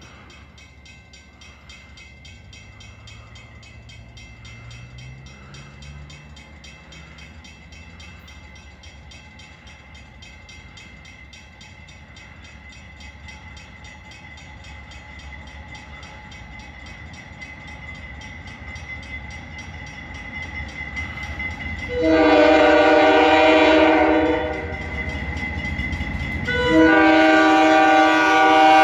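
Diesel freight locomotive approaching, its low rumble slowly growing louder. Then it sounds two long blasts on its multi-note air horn, the second running on past the end.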